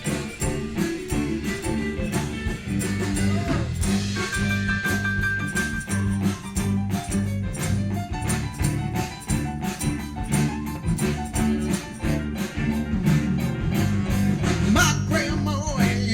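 Live blues band playing an instrumental passage, with a prominent bass line under a steady drum beat.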